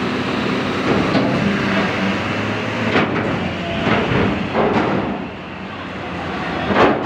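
Steady rumble of running engines with a low hum. Several short knocks and rubs from a finger handling the phone over its microphone are heard, the loudest just before the end.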